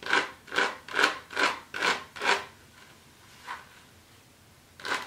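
Tweezers plucking hairs from the lace frontal of a human-hair wig: a regular series of short rasping strokes, about two to three a second, that stops about halfway, with a single stroke in the gap, and resumes near the end.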